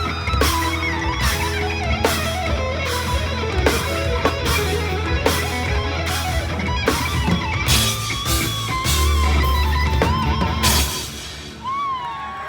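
Drum corps rhythm section playing rock-style music: electric guitar over a steady beat of drums and a heavy bass line, ending on a held final chord that cuts off about eleven seconds in. Whistles from the crowd start near the end.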